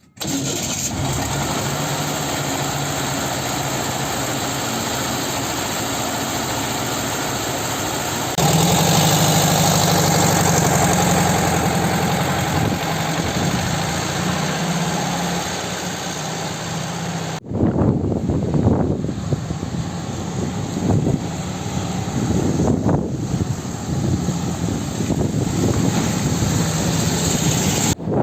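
Volkswagen Type 2 (T2) Kombi's air-cooled flat-four engine running steadily now that its repaired starter has been refitted, getting louder about eight seconds in. About seventeen seconds in, the sound turns rougher and uneven.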